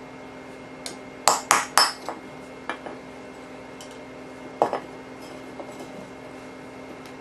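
Hammer striking a steel punch to drive old rivets out of an AK trunnion: a quick run of three sharp metallic strikes about a second in, a few lighter taps, and another hard strike a little past the middle.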